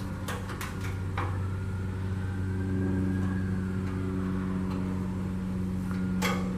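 A steady low machine hum, with a few sharp clicks and knocks of handled metal shortly after the start and again near the end.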